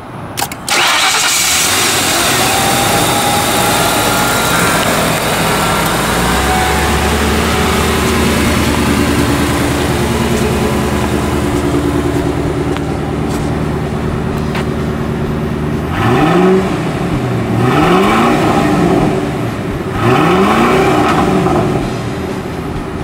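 A 1994 Lincoln Town Car's 4.6-litre overhead-cam V8 starts about half a second in and settles into a steady idle. Near the end its revs are blipped three times, each rise quickly falling back to idle.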